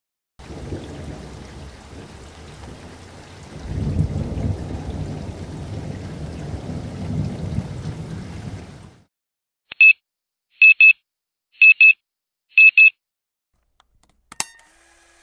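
A rushing noise with low rumbling swells, much like rain and thunder, for about eight seconds. It stops, followed by four quick double beeps about a second apart, like a digital alarm clock, and then a single sharp click near the end.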